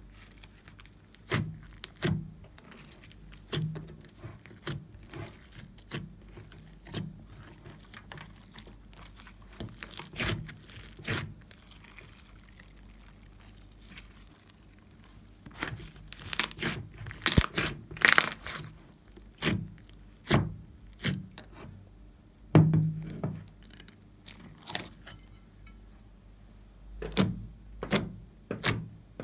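Soft, glossy slime being stretched, folded and poked by hand: irregular sticky clicks and air-pocket pops, sparse at first and coming in quick clusters in the second half.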